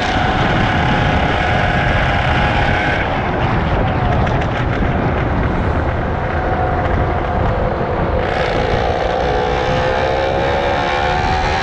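Superbike engine running under way, with steady wind rush. The engine note eases off about three seconds in, then climbs again from about eight seconds as the bike accelerates.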